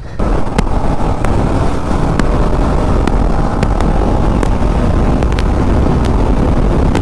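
TVS Apache RR 310 motorcycle being ridden at speed on a highway: a steady rush of engine and wind noise over the microphone, loudest in the low end.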